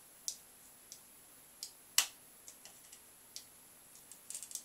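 Irregular sharp clicks and ticks, one louder about two seconds in and a quick run of them near the end, from a soldering iron working the pins of a CRT TV flyback transformer as the transformer is forced out of the circuit board.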